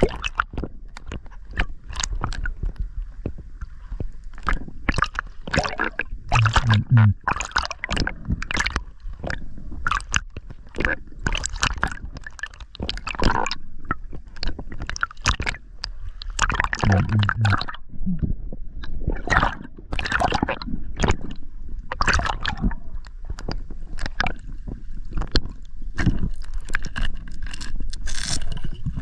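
Water sloshing and gurgling around a submerged camera housing, with dense, irregular knocks and scrapes against it, and two brief low hums about seven and seventeen seconds in.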